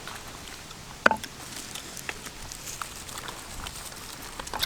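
Scattered light clicks and taps, with one sharper click about a second in, over a faint steady hiss.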